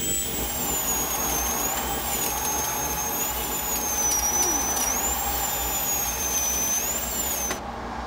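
Film sound effect of a mechanical execution machine running: a high, piercing whine that wavers up and down in pitch over a steady mechanical hiss and low hum, cutting off suddenly near the end.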